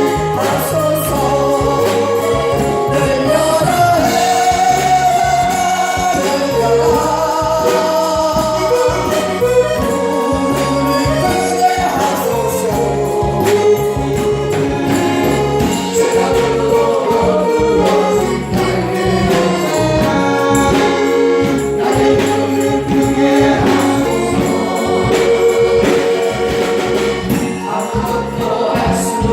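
Christian worship music: a choir singing a gospel song with instrumental accompaniment.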